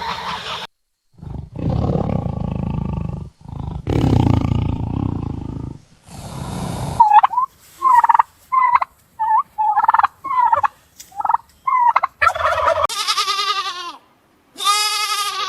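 Turkey calls: a run of short, quick calls that bend in pitch, after two longer rough, noisy sounds. Near the end comes a goat's long bleat.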